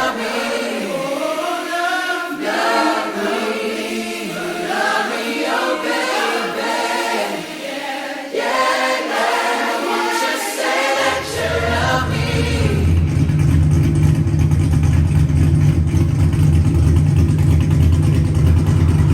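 Choir singing in the background music for about the first eleven seconds, then a car engine running steadily with a loud, deep drone.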